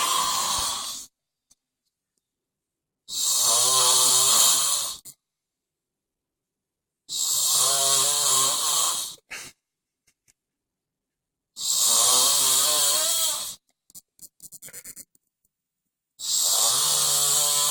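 A sleeping man snoring, one long snore about every four seconds, five in all, each with a low rattling tone and a loud airy hiss.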